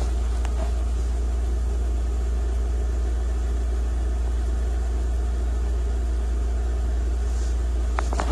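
Volkswagen Beetle engine idling steadily, heard from inside the cabin as a low, even hum. A couple of faint clicks come from a screwdriver being worked into the ignition switch.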